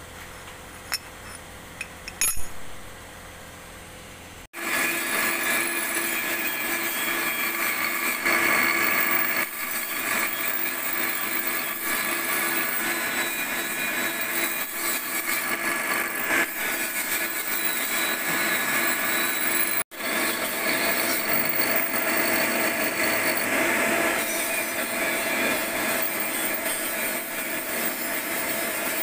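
Bench grinder running with a cutting tool bit held against its wheel: a steady grinding hiss with a constant hum under it, dropping out for an instant about two-thirds of the way through. Before it starts there are a few seconds of quiet with a couple of light metal clinks.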